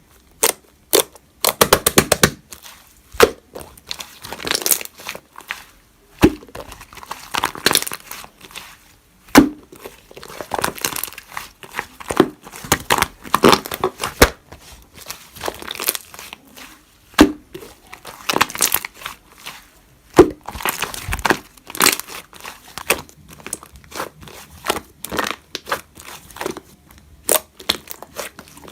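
Slime being squished, stretched and folded by hand, giving a dense run of irregular sticky pops, clicks and crackles.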